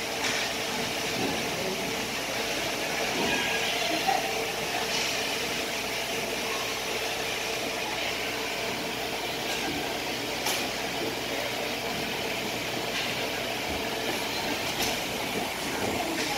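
Ice hockey rink ambience during play: a steady hum of the arena with skates on the ice, broken by a few sharp clacks, the loudest about ten seconds in and another near fifteen seconds.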